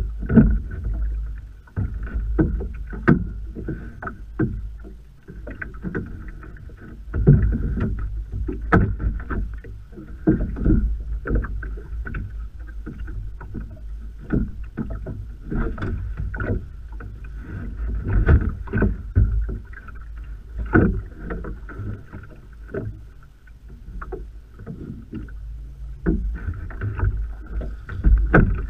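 Wind buffeting the microphone and choppy waves slapping against a small boat's hull, with frequent short knocks and splashes throughout. A faint steady high whine comes and goes.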